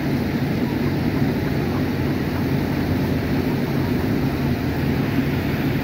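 Fire truck's diesel engine running steadily: a low, even hum with no change in pitch.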